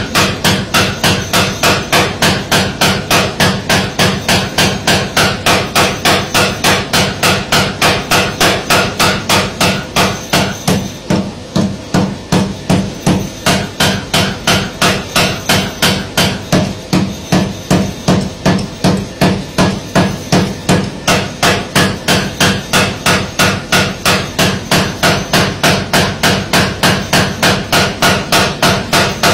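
Mechanical power hammer, a blacksmith's forging machine, striking steadily in an even rhythm of about three blows a second.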